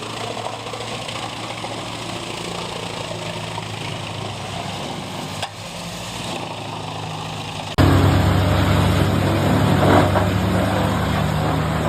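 Industrial wood chipper running steadily, engine and chipping noise together. About eight seconds in it cuts abruptly to a louder machine engine running with a deep, steady drone.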